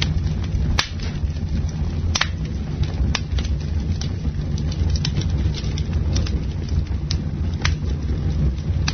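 Campfire burning: wood crackling and popping with frequent small snaps and a handful of sharper pops, over a steady low rumble.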